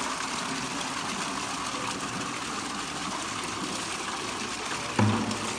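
Competition water pump running, with a steady rush of flowing water. About five seconds in there is a short, loud low hum.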